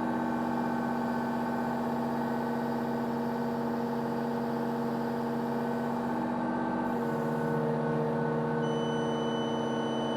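Excavator diesel engine running at raised speed, about 1900 rpm, with the hydraulics working the boom; its note shifts about seven seconds in as the load changes. Near the end the onboard scale gives a steady electronic beep for about two seconds during a calibration lift.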